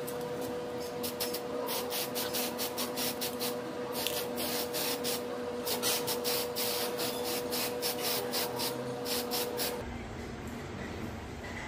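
Aerosol spray-paint can hissing in many short, rapid bursts as a metal bracket is painted, over a steady hum; both stop near the end.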